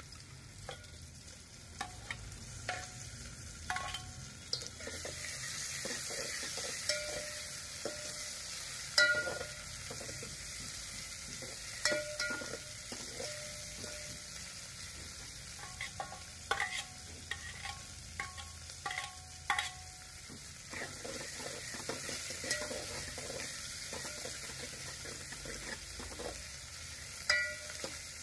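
Sliced onions and tomato pieces sizzling in hot oil in a metal pot, stirred with a steel ladle that scrapes and clinks against the pot's sides again and again.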